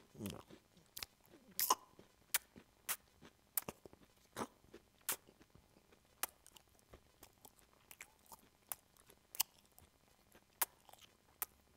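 Faint, close-up mouth sounds from a man: sharp wet clicks and smacks of lips and tongue, like chewing. They come irregularly, about two a second.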